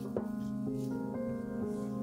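Background piano music, held notes changing every half second or so. Under it, a short click and light rustles as broccoli florets are set down on a baking tray.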